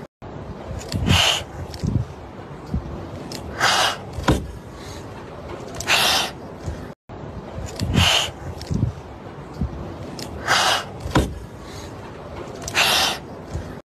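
Frightened tabby kittens hissing defensively: six short, sharp hisses about two seconds apart, with low thumps between them.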